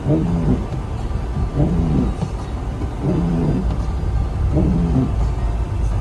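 Windscreen wipers squeaking across wet, snowy glass, one pitched squeal on each sweep about every second and a half, over the steady low rumble of the car's engine and tyres heard from inside the cabin.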